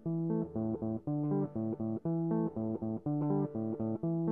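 Background music: plucked guitar over a bass line, a steady run of notes several a second.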